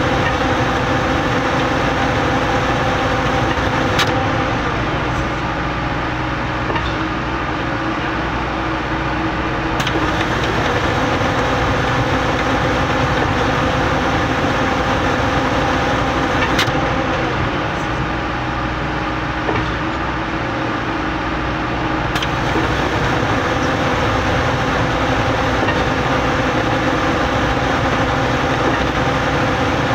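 Putzmeister trailer concrete pump running steadily while pumping concrete, its engine droning, with four sharp clicks spaced about six seconds apart.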